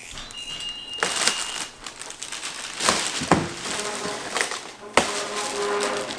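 Plastic and cardboard packaging being handled and pulled apart: crinkling and rustling, broken by a few sharp knocks.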